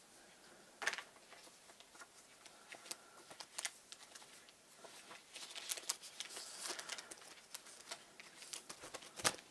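Stiff plastic packaging being cut and pried open by hand: scattered small clicks, crackles and rustles, with a sharper knock near the end.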